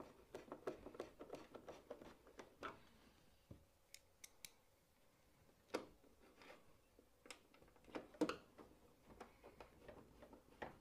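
Faint, irregular clicks and scrapes of a screwdriver driving small screws into a tumble dryer's plastic housing.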